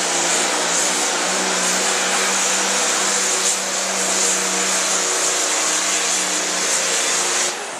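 Farm stock diesel tractor's engine at full throttle under heavy load as it pulls the sled, a loud, steady drone. The sound drops off sharply near the end.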